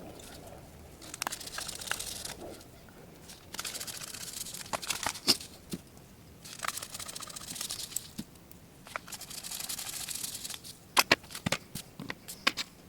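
Rustling and scraping as a Kingston SSD is fitted to the laptop's drive caddy, in four spells of a second or two. A run of sharp light clicks follows near the end.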